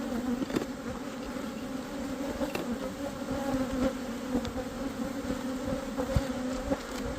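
Honeybees buzzing around an open hive in a steady hum, with a few light knocks.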